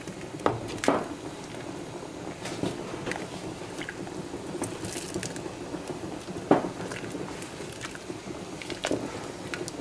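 Thick red peas soup being stirred in a pot with a spoon: steady wet squelching and slopping, with a few sharp clicks, the loudest about six and a half seconds in.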